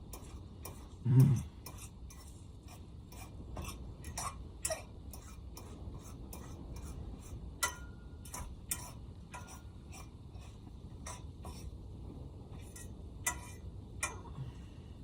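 Eggs frying in butter in a pan on a portable camp stove, crackling with irregular sharp pops, about two or three a second, over a steady low hiss. A short, low thump about a second in is the loudest sound.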